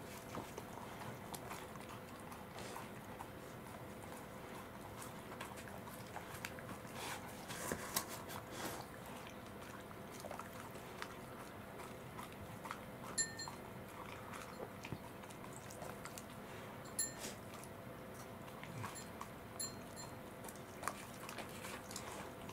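Welsh corgi eating soft soy pulp (okara) off a plate: wet licking and chewing with many small clicks, and a few sharper clinks of the plate ringing briefly.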